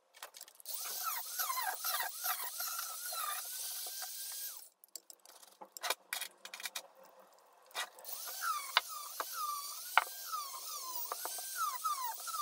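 Small Dremel rotary tool running in spells, cleaning rust and baked-on grime from a brake caliper housing. Its whine dips in pitch again and again as it is pressed onto the metal, then recovers. It stops for about three seconds in the middle, where there are a few clicks, then runs again.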